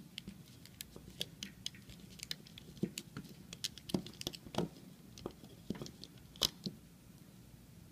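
Light, irregular clicks and taps of small handling: rubber loom bands being worked off the pegs of a plastic Rainbow Loom with a hook.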